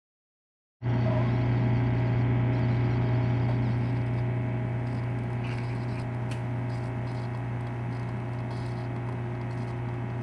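Single-serve pod coffee maker brewing into a mug: its pump comes on abruptly just under a second in and runs as a steady low hum with a hiss above it, easing a little about halfway through.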